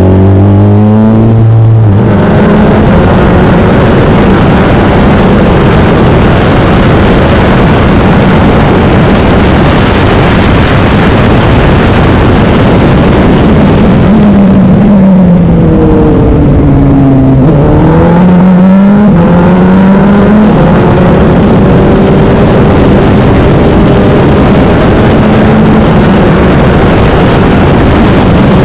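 Wolf GB08 race car engine running hard at high revs, its pitch climbing early on, dropping around the middle as it slows through the gears, then climbing again, over a loud constant rushing noise.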